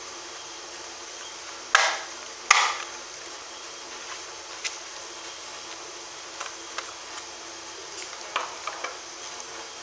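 Cardboard phone box and its inner tray being handled: two louder knocks about two seconds in, then a few light taps and clicks, over a steady hiss.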